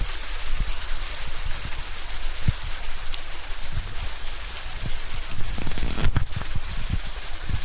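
Steady rain-like patter and trickle of water in a shallow pebbly stream beneath a dripping, fern-hung rock overhang. A few dull low thumps come near the end.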